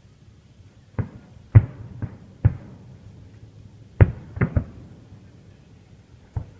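Fireworks bursting: about eight sharp bangs at uneven intervals, each with a short echoing tail, the loudest about one and a half and four seconds in.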